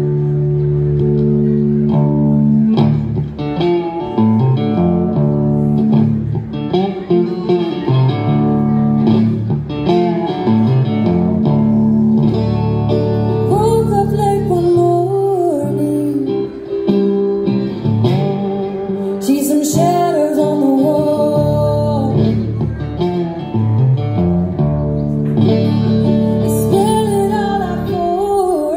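Solo resonator guitar playing a fingerpicked blues accompaniment with steady, repeated bass notes. A higher melody that slides and wavers between notes comes in several times over it.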